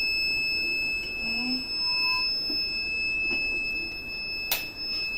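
Kent RO water purifier's buzzer sounding one long, unbroken high beep. This is the filter-change alert, which keeps sounding until the reset button is held down. A sharp click near the end.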